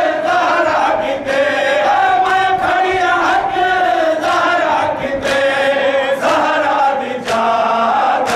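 A large crowd of men chanting a noha, a Shia mourning lament, in unison behind a lead reciter. Sharp slaps about once a second keep the beat: the mourners' matam (chest-beating).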